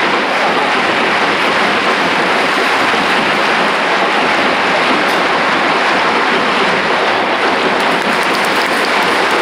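Football stadium crowd: a loud, steady din of thousands of supporters.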